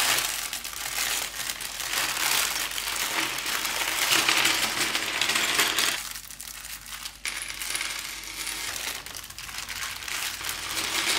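Thin plastic Lego parts bags crinkling as they are pulled open and handled, with loose plastic bricks clinking and rattling inside. It goes briefly quieter about six seconds in, then picks up again.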